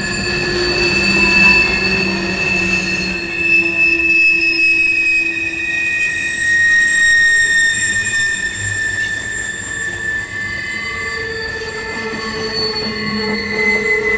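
Steel wheels of a passing mixed freight train's cars squealing against the rails, several sustained high-pitched tones that drift slightly in pitch, over the steady rolling rumble of the cars.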